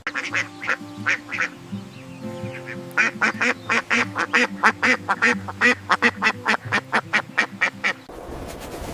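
A duck quacking repeatedly over background music: a few scattered quacks at first, then a fast run of about four quacks a second that stops about a second before the end.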